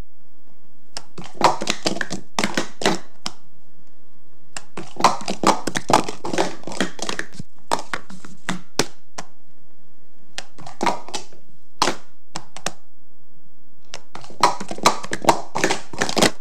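Plastic sport-stacking cups clacking against each other and the countertop as they are stacked up and down fast, in about four quick runs of rapid clatter with short pauses between.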